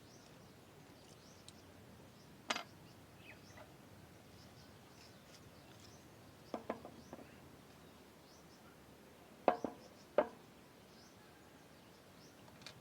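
A few sharp knocks and clicks: one about two and a half seconds in, a small cluster around six and a half seconds, and two louder ones near nine and a half and ten seconds, over a quiet background with faint high chirps.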